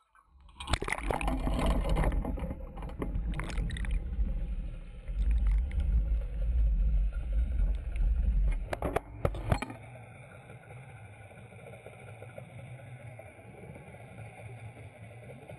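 Deep underwater rumble and rushing water with a few sharp knocks, dropping to a quieter, steady wash about ten seconds in.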